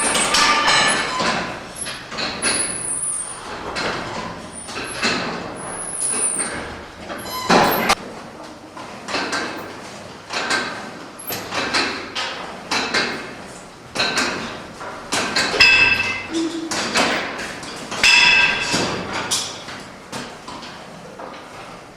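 Irregular metallic clanks and knocks of weight-training equipment being worked, several a second at times, some with a brief ringing tone.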